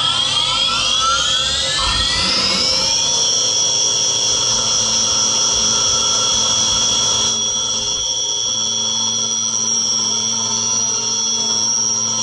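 Mini vertical machining centre's spindle spinning up: a rising whine over about the first three seconds that levels off into a steady high whine at about 7000 rpm. The sound changes slightly about seven seconds in.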